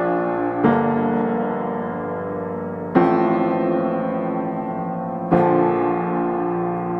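Background piano music: slow sustained chords, a new chord struck about every two to three seconds and left to ring and fade.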